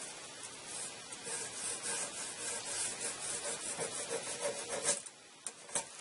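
Pencil scratching on the planed wood of a gunstock blank in repeated short strokes, drawing a layout line along a tape ruler. The strokes stop about five seconds in, followed by a couple of light clicks.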